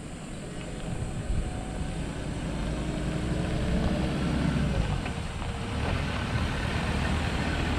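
Ford Ranger pickup towing an off-road camping trailer drives up on a dirt road, its engine and tyre noise growing louder as it comes closer, with the engine note dropping about halfway through.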